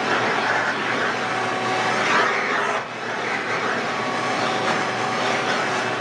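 Ridgid WD1450 wet/dry shop vacuum running steadily, its floor nozzle sucking air as it is pushed over carpet. The sound drops briefly about three seconds in.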